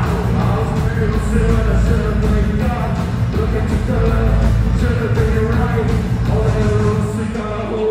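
Loud live rock band playing through a concert PA, with heavy bass and a short riff repeating about once a second.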